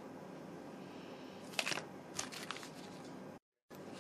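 Quiet room tone with a few soft crinkles of plastic snack packaging being handled, about one and a half and two seconds in. The sound drops out completely for a moment near the end.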